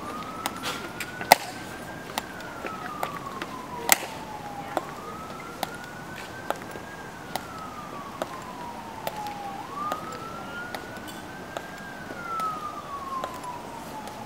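A siren wailing, slowly rising and falling about every five seconds, over sharp clicks of a guard's hard-soled shoes striking the stone plaza about once a second.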